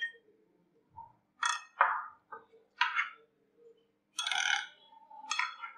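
Metal spoon stirring a wet yogurt mixture in a glass bowl, clinking and scraping against the glass several times in short, separate strokes.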